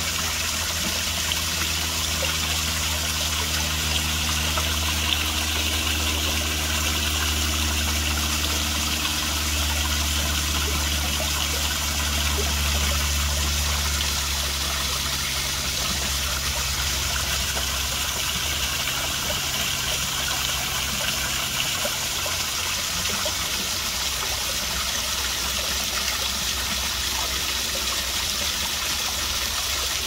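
Koi pond waterfall splashing steadily into the pond. A low steady hum lies underneath and fades out in the second half.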